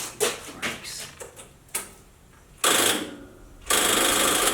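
Starter motor on a 1975 John Deere 210 garden tractor, preceded by a few light clicks, then engaging in two short bursts of grinding, mechanical whirring without the engine starting. The owner puts this down to not enough power reaching the starter.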